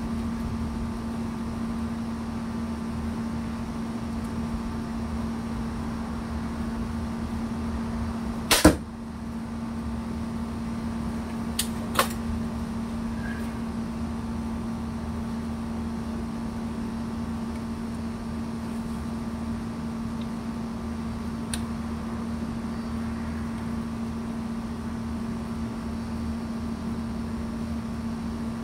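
Barnett XP 370 crossbow firing once about nine seconds in, a single sharp snap of the released string, followed a few seconds later by two light clicks. A steady hum from an outdoor air-conditioning unit runs underneath.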